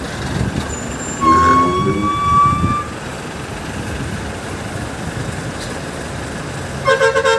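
A vehicle engine running steadily, with a long vehicle horn blast from about one to three seconds in, rising slightly in pitch, and a short pulsing horn toot near the end.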